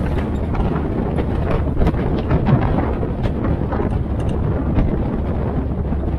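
Open military Jeep under way on a paved road: the engine runs steadily with a low road rumble, wind on the microphone, and scattered light clicks and rattles.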